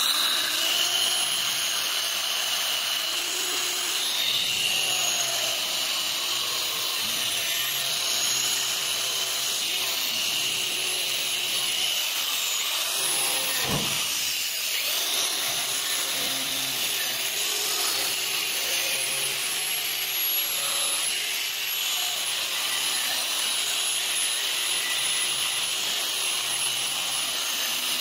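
Electric angle grinder with a cup-wheel attachment running steadily with a high whine, working against a steel scissor blade clamped in a vise. The pitch briefly dips about halfway through as the grinder comes off the metal.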